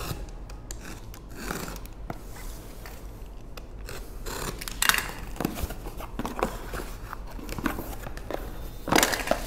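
A cardboard parcel being opened by hand: a cutter scraping along the packing tape, then the cardboard flaps pulled open and the contents handled, with a sharp crackle near the end.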